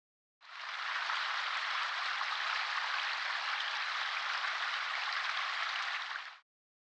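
A steady, rain-like hiss that comes in about half a second in and cuts off abruptly near the end.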